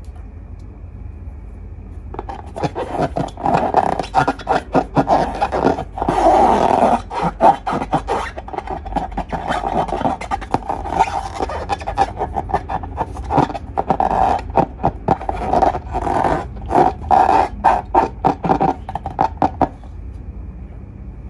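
Glossy slime being squished and stretched by hand, making rapid, irregular sticky clicks and pops. It starts about two seconds in and stops shortly before the end.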